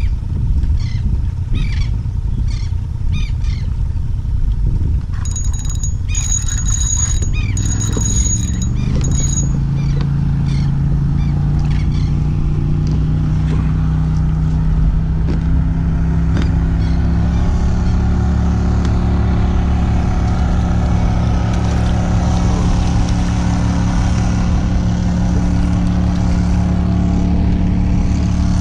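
Motorboat engine running and speeding up, its pitch rising for several seconds before settling to a steady drone, over a heavy low rumble of wind on the microphone.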